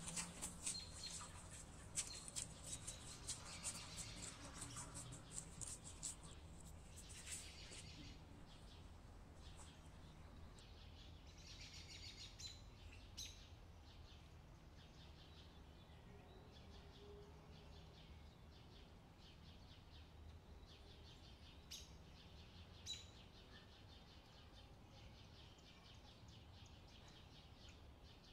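Soft dough being kneaded by hand in a glass bowl: quiet sticky clicks and squelches for the first several seconds. After that there is near silence with a few faint bird chirps.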